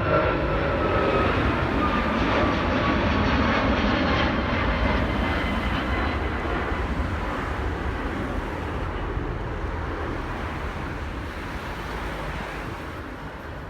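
Airbus A340, a four-engine jet airliner, taking off at full thrust. Its engine whine falls slowly in pitch as it passes, and the jet noise then fades away.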